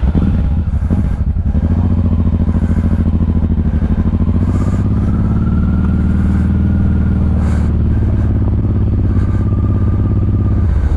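Honda Transalp 600's V-twin engine running at low, steady revs, its pitch rising a little and easing back around the middle. A couple of brief clacks come through over it.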